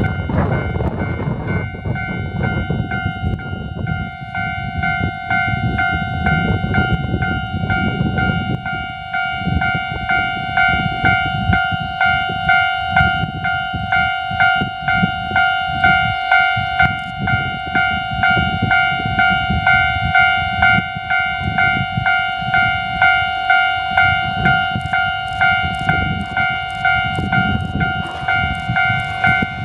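Japanese railway level-crossing warning bell ringing steadily, its electronic ding pulsing about once a second as a diesel railcar approaches. Near the end the railcar's running noise and the clicking of its wheels on the rail joints come in.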